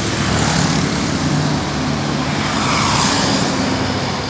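Road traffic: motor vehicle engine and tyre noise, swelling as a vehicle passes with its loudest point about three seconds in.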